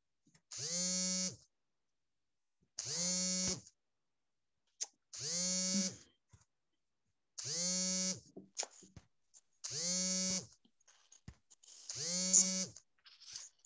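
An electric buzz from a device on the call, sounding six times at an even pace of about one buzz every two and a quarter seconds. Each buzz lasts under a second, rising in pitch as it starts and sagging as it stops.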